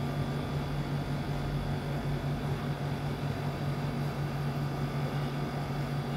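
A steady mechanical hum: a low, unchanging drone with a thin high whine above it.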